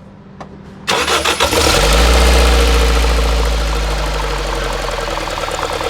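Toyota Corolla XLi's VVT-i petrol engine being started: a second of cranking about a second in, then it catches, flares up and settles toward idle. As it settles, a fast, even ticking runs through the engine sound.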